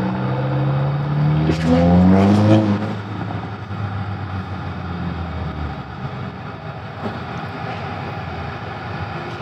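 A car engine accelerating nearby, its pitch rising steadily for about three seconds and loudest just before it drops away. After that only a steady rush of traffic noise remains.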